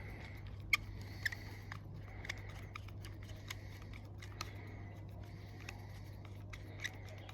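Small metal carburettor parts and a hand tool clicking and ticking irregularly while a lawnmower carburettor is put back together and a part is screwed in. A steady low hum runs underneath.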